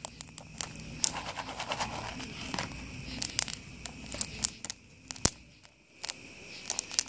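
Scattered sharp pops and crackles from a wood fire and from popcorn popping inside a foil popcorn pan held over it, with one louder crack about five seconds in.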